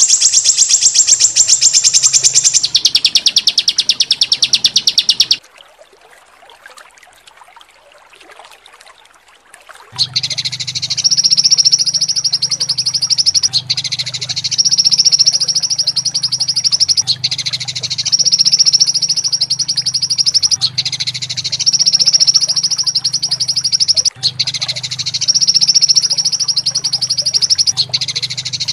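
Looped songbird masteran recording of harsh rapid-fire calls. A fast rolling trill runs for about five seconds, then drops to a faint lull. About ten seconds in, a rattling trill starts and repeats in phrases about three and a half seconds long, with a low pulsing buzz beneath it.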